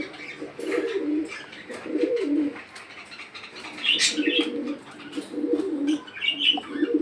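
Caged pigeons cooing, one low rolling coo after another, with a few short high chirps from small cage birds about four seconds in and again near the end.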